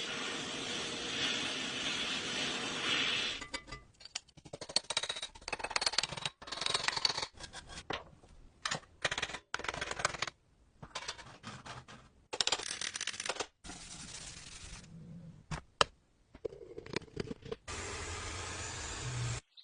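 Metal parts of an old cash register clinking, rattling and scraping as it is worked on, in many short separate bursts. Before them comes a few seconds of steady noise, and near the end another steady stretch with a low hum.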